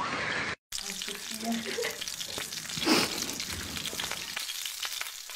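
Food sizzling in a hot frying pan, a steady crackling hiss that swells briefly about three seconds in. It follows half a second of surf washing over sand and a brief cut to silence.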